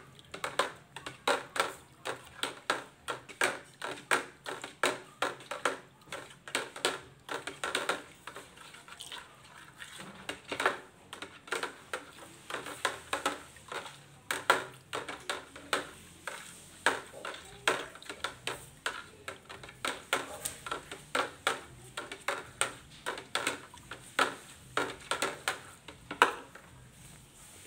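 Metal wire skimmer clicking against the side of a plastic bucket while stirring a thick fabric conditioner mix, about two to three sharp taps a second. The taps ease off briefly about a third of the way in and stop shortly before the end.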